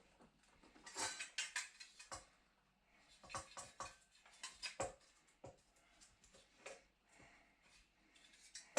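Faint, irregular clicks, light knocks and scrapes of small metal parts being handled and worked loose by hand during headlight dismantling, with small clusters of sounds about a second in, around three and a half seconds and near five seconds.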